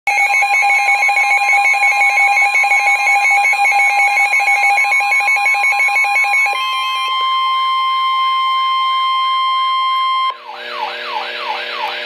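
All-hazards weather alert radio sounding its alarm for a flash flood warning. For about six seconds it gives a rapidly pulsing steady alarm tone, then a single steady tone near 1 kHz (the NOAA Weather Radio 1050 Hz warning alarm tone) for about four seconds. A warbling sweep runs under both, and the tone gives way to radio static near the end.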